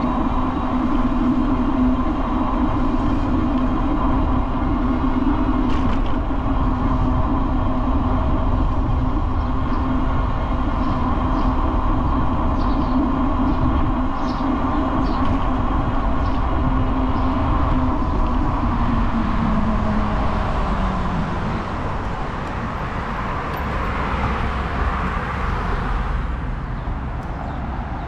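A vehicle running with a steady mechanical hum and rumble. About 19 seconds in, its low drone falls in pitch and the sound eases off a little, as when the vehicle slows.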